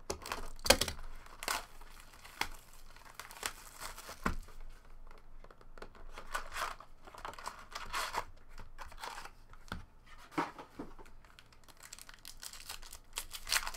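Shrink wrap being slit and pulled off a trading-card box, then foil card packs crinkling and tearing as they are handled and opened, with many short crackles and taps.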